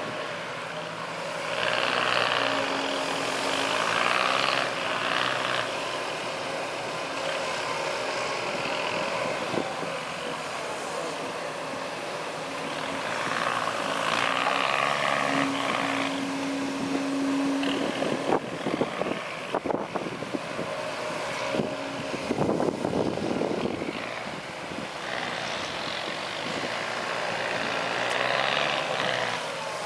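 Heavy earthmoving machines' diesel engines working, revving up and easing off in turns. Past the middle comes a spell of metallic clattering and banging.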